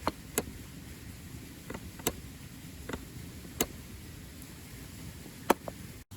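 Wood campfire crackling: irregular sharp pops and snaps, about seven in all, over a steady hiss, the loudest about five and a half seconds in.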